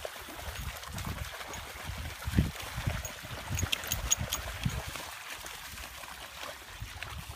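Several dogs splashing and wading through shallow floodwater, with a few sharp splashes about halfway through. Wind gusts rumble on the microphone throughout.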